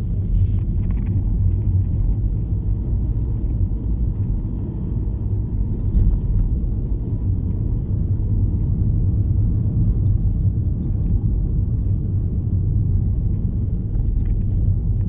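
Car driving, with a steady low rumble of engine and tyres heard from inside the cabin.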